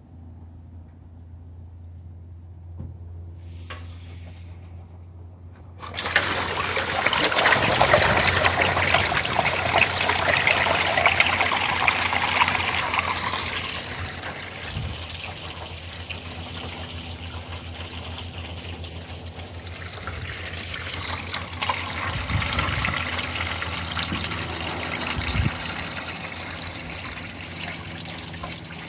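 Standing water in a clogged aluminum eavestrough draining down through the gutter outlet once the blockage is freed. It starts as a sudden rush about six seconds in, loudest for the next several seconds, then settles to a steadier trickle.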